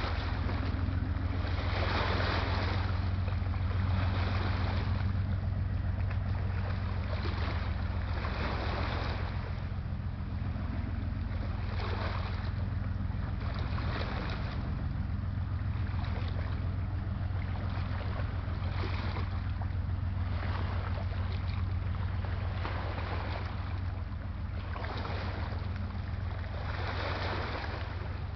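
Steady low drone of a pusher tug's diesel engines driving a loaded self-unloading barge past, heard across open water. Waves wash in about every two seconds.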